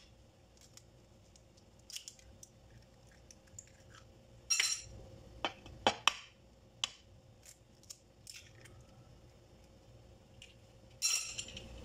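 Eggs cracked against a wooden bowl and dropped into a grated pumpkin mixture, with light clinks of a fork. There are a few sharp taps scattered through, a tight cluster of knocks about halfway, and a short scrape near the end.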